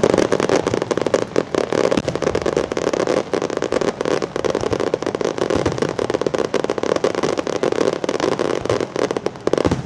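Fireworks barrage: a rapid, dense run of shell bursts and crackling, many bangs a second, with the pace easing just before the end.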